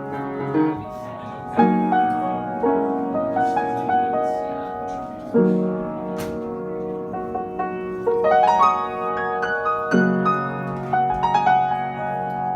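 Piano being played: full chords struck and left to ring, a new one every few seconds, with lighter melody notes on top.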